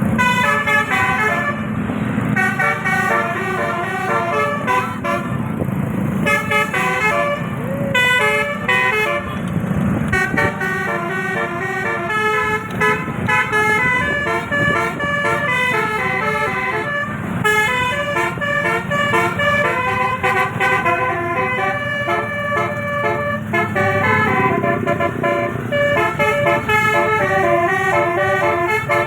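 Multi-trumpet telolet bus horn, 18 roof-mounted trumpets, playing a fast, continuous melody of short stepped notes, with a low rumble underneath.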